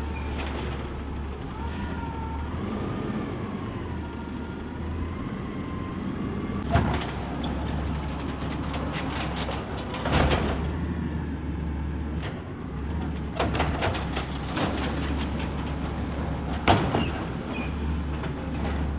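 Automated side-loader garbage truck running with a steady low engine drone. A wavering whine rises and falls for a few seconds near the start, and from about a third of the way in come several sharp clanks and bangs as the truck works the carts along the curb.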